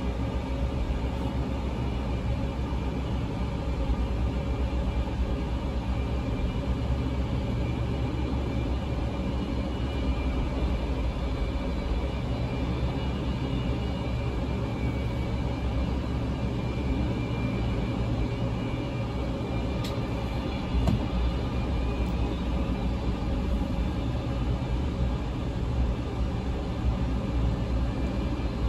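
Antonov An-124's four Progress D-18T turbofans running at taxi power: a steady rumble with a faint high whine, with wind buffeting the microphone.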